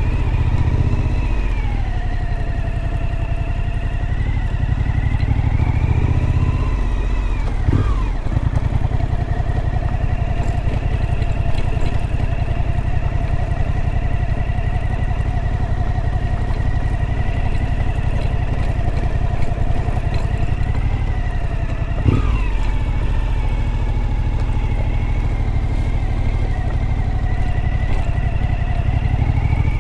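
Suzuki V-Strom motorcycle being ridden, its engine running steadily over a heavy low rumble of wind and road noise. The engine note dips and picks back up twice, about 8 seconds in and again around 22 seconds in.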